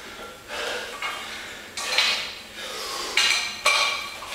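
Loaded barbell with bumper plates being gripped and shifted on the floor: several sharp metallic clinks of plates and sleeves, each with a brief ring, about two seconds in and again around three seconds in.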